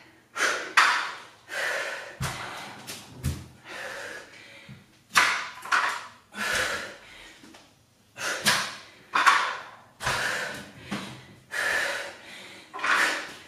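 Heavy, quick exhaling breaths of a woman under exertion, about one a second, with a few dull thuds as dumbbells and feet come down on a rubber floor mat.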